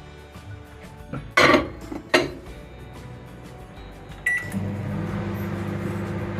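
Two sharp knocks, then a short beep as the microwave oven is started, followed by the microwave's steady running hum.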